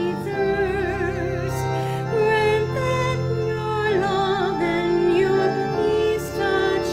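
Church hymn: a singer holding notes with vibrato over long, sustained accompanying chords.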